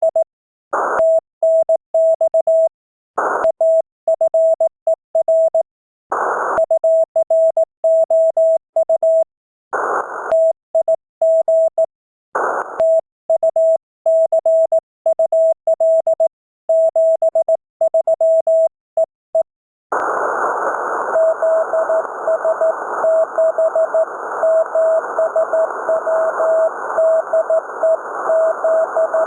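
Morse code (CW) heard on an amateur radio transceiver: a single keyed tone sending dots and dashes, with short bursts of receiver hiss between groups. About twenty seconds in, steady band noise comes up and a weaker Morse signal carries on beneath the hiss.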